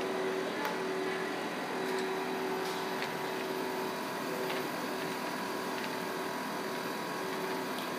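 Steady hum of a paper-web feeding machine running, several tones held even, with a few faint clicks.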